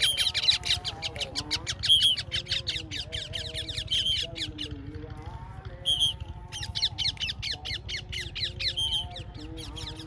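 Yellow ringneck parakeets screeching in flight: a rapid run of shrill, downward-slurred calls, several a second, with a brief pause about halfway through.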